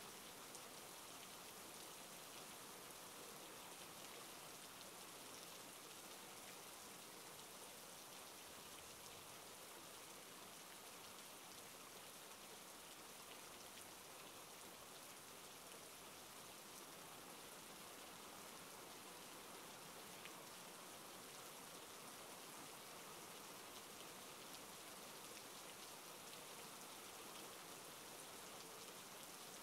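Rain falling steadily: a quiet, even hiss with no let-up.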